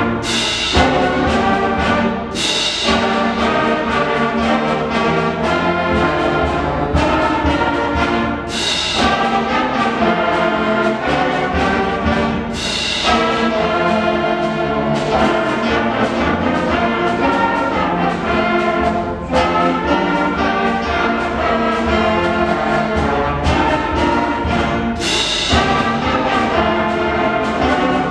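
Middle school concert band of woodwinds, brass and percussion playing a piece at full volume, with a few sharp accented hits.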